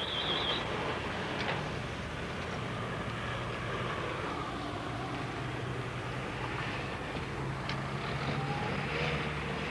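Car engines running, with a steady low hum under general street noise and a couple of faint knocks.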